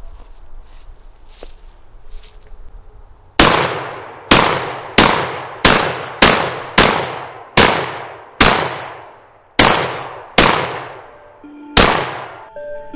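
Panzer AR-12 Pro gas-operated semi-automatic 12-gauge shotgun fired eleven times in quick succession, starting about three seconds in, each shot followed by a fading echo, until the 11-round magazine is empty.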